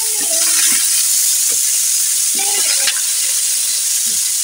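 Squash pieces frying in hot oil in a wok, a steady loud sizzle as the pieces go in, with a couple of brief clicks.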